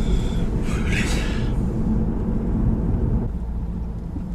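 Car cabin noise while driving: a steady low engine and road rumble, with a brief rushing hiss about a second in. The rumble eases a little after about three seconds.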